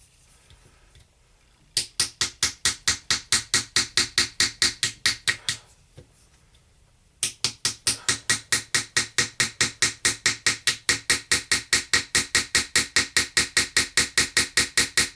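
Small hammer striking a chisel into a toy treasure dig block, rapid even taps at about four a second, in two runs with a pause of a second or so between them.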